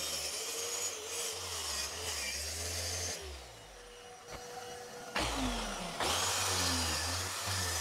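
Plunge track saw running on its guide rail with a dust extractor hose attached, plunge-cutting into a lightweight plywood panel. The noise drops about three seconds in and picks up again about five seconds in.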